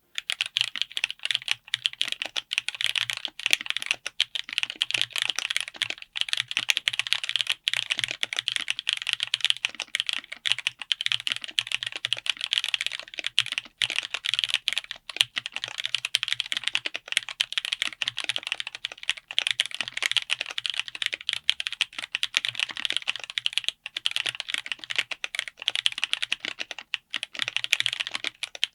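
Fast, continuous typing on a mechanical keyboard with Ajazz Blue Sky tactile switches, mounted on an FR4 plate in an aluminium-cased 60% board: a dense, unbroken run of keystroke clacks.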